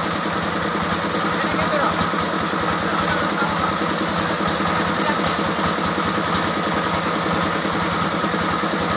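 Engine of a log-sawing machine running steadily at an even speed, with a fast, even low pulse.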